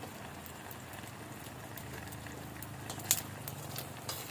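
Wood fire crackling, scattered sharp pops over a low steady hiss, the loudest pop about three seconds in.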